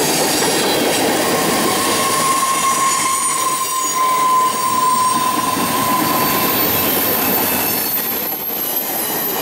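Freight cars of a mixed manifest train rolling past at speed: a steady rolling and rattling noise of steel wheels on rail, with a thin squeal holding one pitch from about a second in to about seven seconds in.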